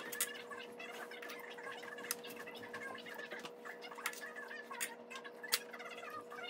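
Forks and spoons clicking and scraping on ceramic dinner plates during a meal, in short scattered ticks over a steady hum.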